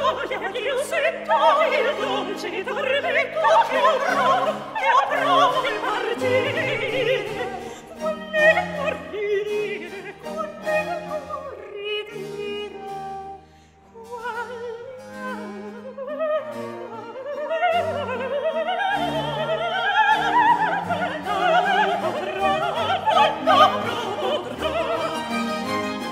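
A recorded operatic aria: a high voice singing with wide vibrato over an orchestral accompaniment with strings. The music drops to a softer passage around the middle, and then the singing returns in full.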